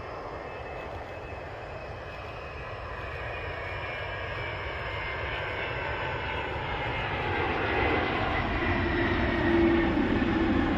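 Twin-turbofan jet engines of a Boeing KC-46 Pegasus tanker running, a rushing roar with a high whine that grows steadily louder as the aircraft comes closer.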